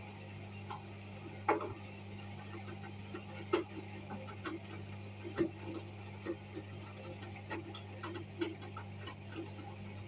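Hoover front-loading washing machine tumbling a wash: a steady low hum under irregular light clicks and taps as the wet load and water turn in the drum, with a few louder knocks.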